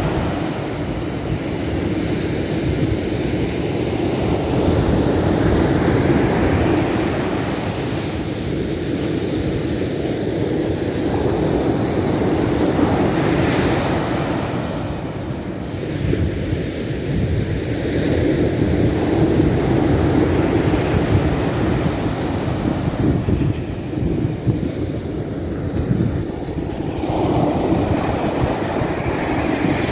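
Baltic Sea surf washing onto the shore, swelling and easing every several seconds, with wind buffeting the microphone.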